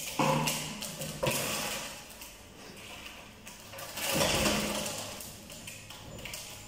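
A puppy pushing and jumping on a large empty plastic water jug on a tiled floor: hollow plastic knocks and scrapes, with three sudden bursts, the loudest about four seconds in as it leaps onto the jug.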